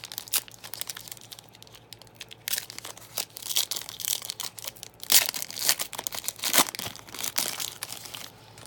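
A sports trading card pack's plastic wrapper being torn open and crinkled by hand: irregular crackling and tearing, loudest about five and six and a half seconds in, dying away near the end.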